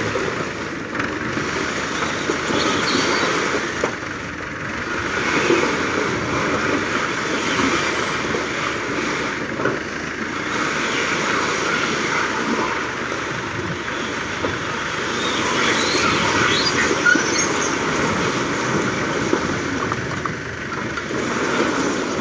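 Fiat 640 tractor's diesel engine running under load while bricks slide and clatter out of its raised tipping trolley, with scattered clinks and knocks.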